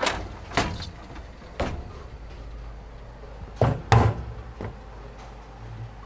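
Bowling ball return: a series of hard knocks as balls strike one another and the rack, the loudest two close together about three and a half to four seconds in, over a steady low rumble.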